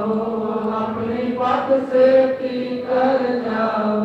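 Sikh kirtan music between the lead singer's lines: a steady, sustained melody of held notes with a chant-like vocal sound.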